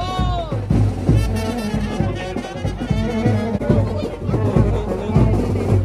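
Indian wedding brass band (band baja) playing, horns over a heavy repeated beat, with crowd voices beneath.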